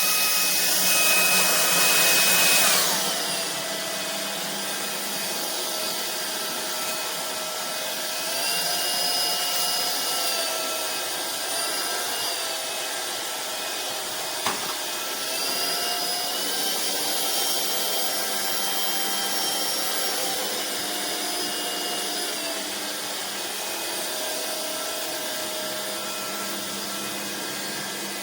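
Vistefly V15s Max cordless stick vacuum running, a steady motor whine over a rush of air. It is louder for the first few seconds, then drops to a lower setting, and its pitch steps up and down several times after that. There is one sharp click about halfway through.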